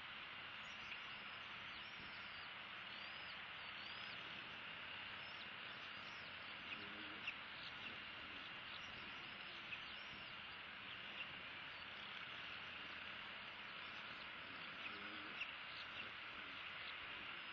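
Faint birds chirping: many short, high chirps scattered over a steady outdoor hiss, with a few brief clicks in the second half.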